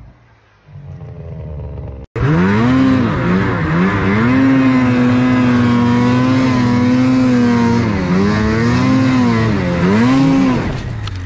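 Snowmobile engine running at high revs under hard throttle, its pitch dropping and climbing again several times as the throttle is eased and reopened. A quieter engine runs for the first two seconds, before a sudden cut to the louder one.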